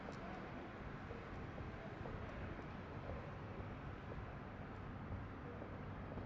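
Steady low rumble of city ambience, mostly distant traffic, with a few faint scattered ticks.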